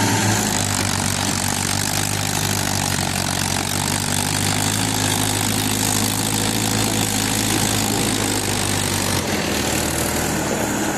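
Diesel farm tractor engine running steadily at close range, a constant low engine drone that shifts slightly about nine seconds in.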